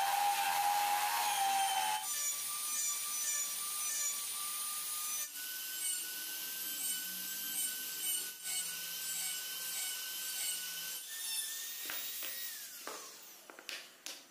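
A drill-driven wood lathe whines while a chisel cuts a spinning wooden wheel. Then a handheld rotary tool whines steadily at a higher pitch as its bit grinds tread into a wooden tyre. Near the end the whine falls away as the motor winds down, followed by a few light knocks.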